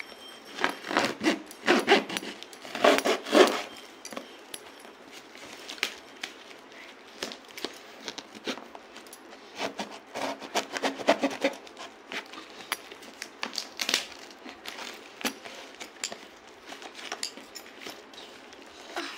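Cardboard box being opened by hand: scraping, tearing and rustling of the cardboard and packing tape in irregular spells, busiest in the first few seconds and again about ten seconds in.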